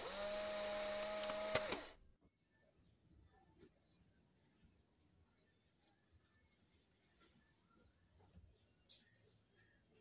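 A loud intro sound effect lasting about two seconds that cuts off abruptly. It is followed by insects chirring steadily in a single high, continuous band.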